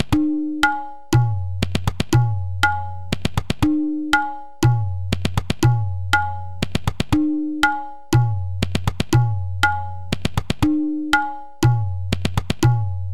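Virtual tabla accompaniment playing a seven-beat Teevra taal theka at 120 bpm: Dhin TiReKiTe Dhin Na TiReKiTe Tin Na. The cycle repeats about every three and a half seconds, with the deep bayan ringing under the Dhin strokes and quick TiReKiTe rolls between them.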